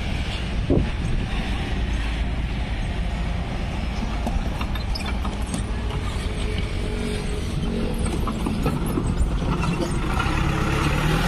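A small Mitsubishi pickup truck driving past close by, its engine running over a steady low rumble of road noise.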